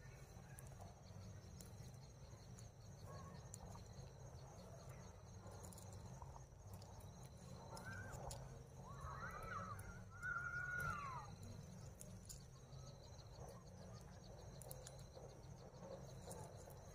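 Quiet outdoor ambience: a steady high chirring of insects, with a few short arching animal calls a little past the middle.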